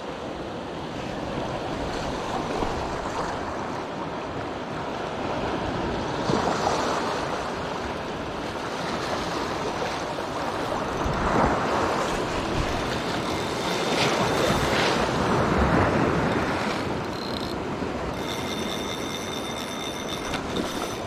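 Small waves washing over shoreline rocks with wind on the microphone, and a splash in the shallows about halfway through. Near the end a steady high buzz comes in: the spinning reel's drag paying out line to a fighting fish.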